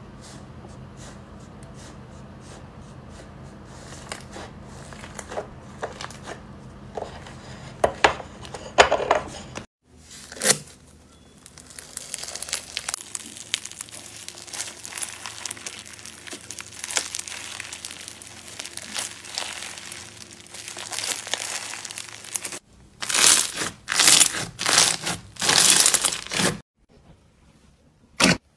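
Hands pressing and squeezing slime, including foam-bead crunchy slime, making steady crinkling and crackling with many small pops. Near the end comes a run of several louder separate presses.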